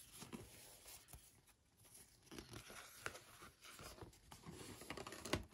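Faint rustling and scraping of stiff glossy paper as the pages of a large spiral-bound wall calendar are turned by hand, with a sharper tap of a page near the end.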